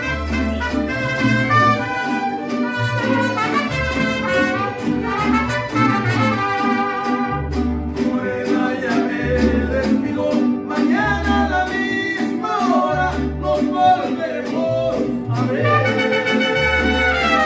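Mariachi band playing live: violins and trumpets carry the melody over a plucked guitarrón bass and strummed vihuela and guitars. Through the middle a man's voice takes over the singing, and the violins and trumpets come back near the end.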